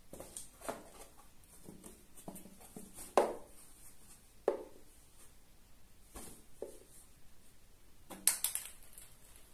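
A cat pawing and scratching at a cardboard box toy: irregular taps and knocks on the cardboard, with sharp knocks about three and four and a half seconds in and a quick flurry of hits near the end.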